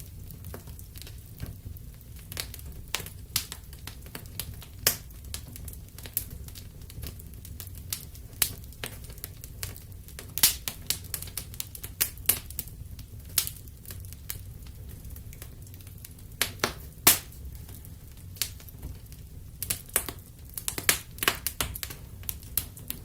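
Wood fire crackling in a fireplace: irregular sharp pops and snaps over a steady low rumble of the flames, the pops coming thicker near the end.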